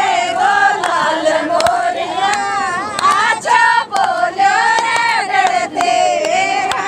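Group of women singing a Rajasthani folk song together, loud and high-pitched, the melody wavering up and down, over crowd noise.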